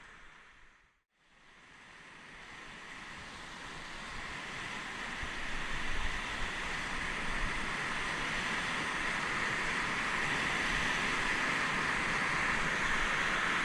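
Fast mountain river water rushing steadily. It fades out briefly about a second in, then swells back and holds.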